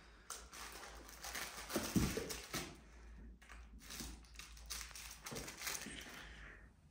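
A British Shorthair kitten wrestling a small fabric catnip toy on a tile floor, with irregular crinkling and rustling as it bites and kicks the toy. There are a couple of soft thumps about two seconds in.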